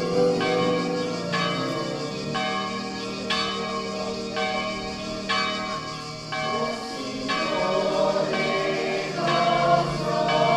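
Church bells ringing a peal, one stroke about every second, the strokes differing in pitch and each left to ring on.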